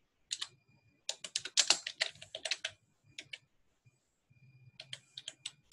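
Typing on a computer keyboard: quick runs of keystrokes with short pauses between them.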